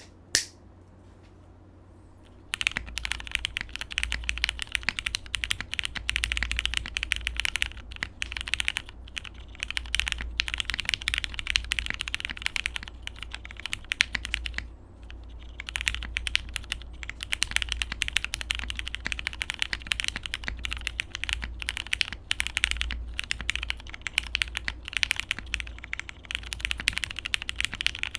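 Fast, continuous typing on a custom plateless mechanical keyboard with lubed Cherry MX Hyperglide switches and PBT keycaps in an aluminium case: a dense stream of keystroke clacks starting a couple of seconds in, with a pause of about a second near the middle.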